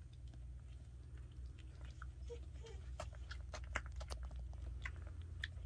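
Newborn puppies nursing: faint, wet sucking and smacking clicks, irregular and overlapping, with a couple of tiny squeaks about two and a half seconds in.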